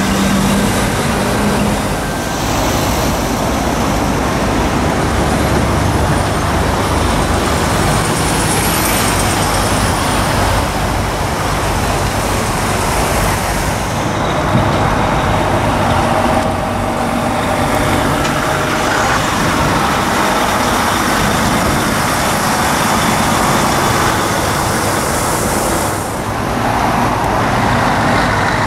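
Heavy diesel lorries manoeuvring at low speed: engines running and tyres rolling, with the sound changing abruptly a few times as different trucks pass. A reversing alarm beeps in the first second or two.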